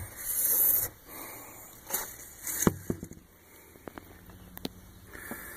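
Handling noise: a short hiss at the start, then light scrapes and a few sharp taps, about three, spread across the rest.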